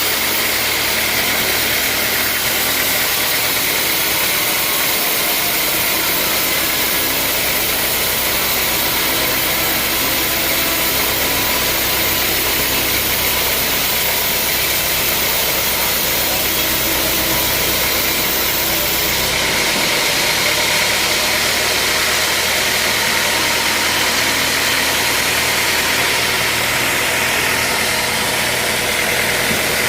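Sawmill machinery running steadily: a loud, even machine noise with a low hum that drops out about two-thirds of the way through.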